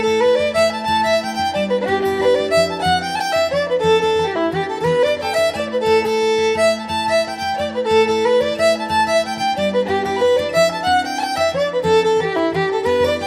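Background music: a fast fiddle tune, quick runs of notes rising and falling over steady held lower notes.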